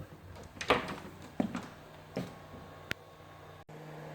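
Four short knocks, roughly evenly spaced about three-quarters of a second apart, then a faint steady low hum near the end.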